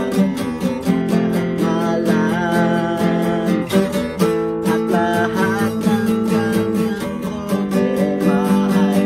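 A man singing in Tagalog to his own steadily strummed acoustic guitar.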